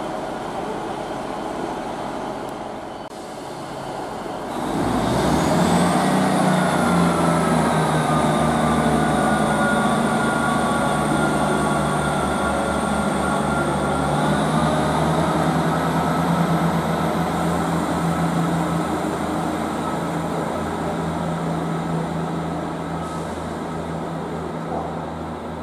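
Class 158 diesel multiple unit's underfloor diesel engines opening up as the train pulls away from the platform, with a high transmission whine that rises as it starts off and steps up in pitch about fourteen seconds in. The sound starts about four and a half seconds in and fades slowly as the train draws away.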